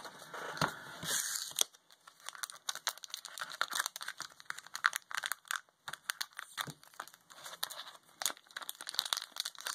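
Foil booster-pack wrapper crinkling and crackling as it is handled in the hands, a run of irregular small crackles.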